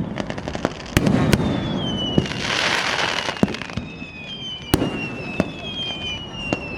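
Fireworks and firecrackers going off: a string of sharp bangs at uneven intervals, a hissing burst lasting about a second and a half near the middle, and long, slowly falling high whistles.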